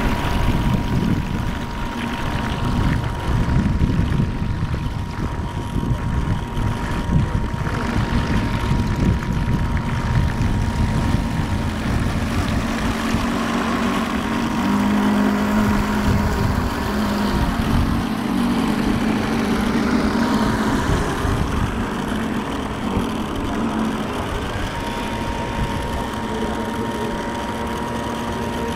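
Small engine of a radio-controlled model boat running out on the water as a steady whine, louder for several seconds midway, with wind buffeting the microphone.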